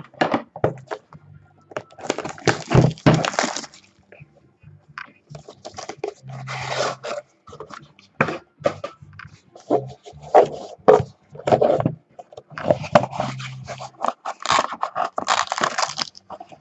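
A sealed trading card box being opened by hand: repeated tearing, crinkling and scraping of wrapping and cardboard, with small clicks and knocks in between.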